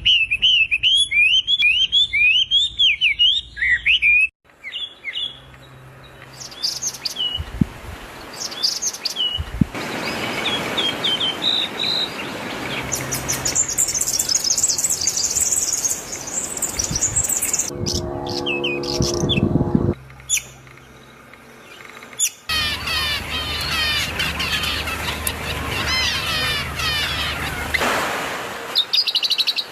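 Wild birds singing and chirping in a series of short cut clips: quick rising chirps, scattered high calls and fast repeated trills, with a brief call in evenly stacked tones about two-thirds of the way in.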